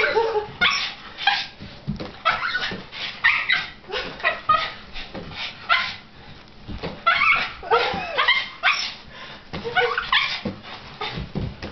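A Boston Terrier yipping, barking and whining in quick short calls, several a second, some sliding in pitch: the frustrated excitement of a dog wanting at a balloon being batted about.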